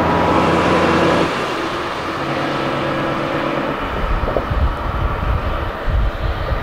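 A steady held tone of several pitches over rumbling vehicle noise, cutting off about a second in. Then an even rumble, with uneven low buffeting from about four seconds.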